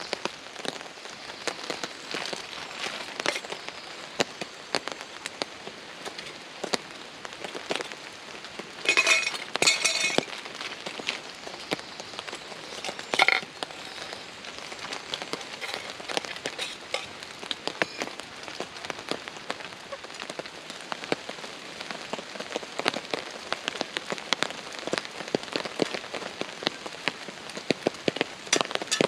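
Heavy rain drumming steadily on a tarp, a dense patter of drops. A few brief louder sounds break through about nine and ten seconds in, and again near thirteen seconds.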